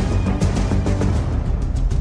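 Background music with a steady beat of percussion hits over sustained tones.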